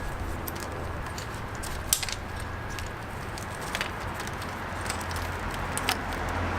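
Small clicks and rustles of a wiring harness and its plastic tabs being handled and pushed into place behind a motorcycle's front fairing, over a steady low hum. The sharpest click comes about two seconds in, with others a couple of seconds apart.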